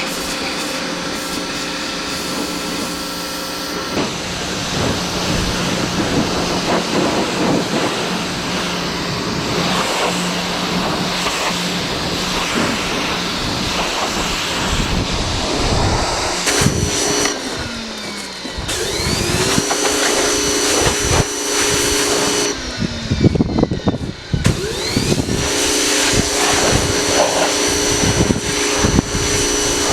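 Pressure washer running, its motor and pump humming steadily under the hiss of the water jet. Twice, about halfway through and again a few seconds later, the motor drops in pitch as it slows, then rises back to speed as spraying resumes.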